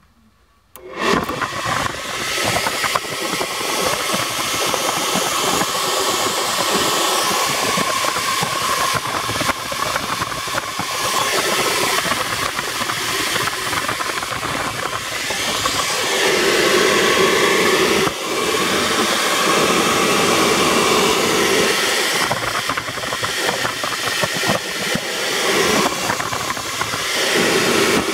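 Heater blower with a 197.3730 electric fan motor, in a GAZ-21 heater housing, switched on about a second in and running on battery power with a steady, loud rush of air.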